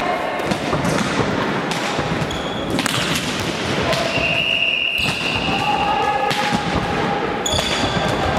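Volleyballs being hit and bouncing on a sports hall floor: repeated sharp thuds echoing in the large hall, with short high squeaks and calls among them.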